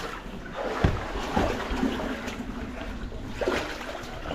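Scraping and shuffling of a caver squeezing through a tight cave passage, with a few soft knocks.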